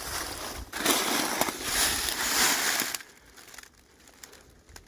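Dry fallen leaves crunching and crackling, as under footsteps, stopping about three seconds in.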